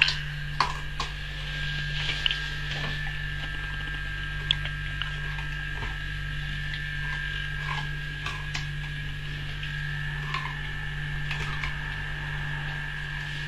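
Dog's teeth scraping and clicking on the hard rind of a whole watermelon, a scatter of sharp clicks, loudest in the first few seconds, over a steady electrical hum.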